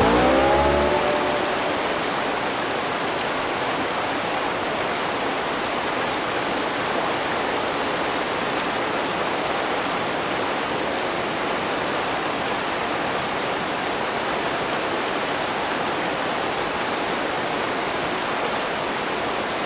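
Steady rush of a fast-flowing river running over rocks in shallow riffles.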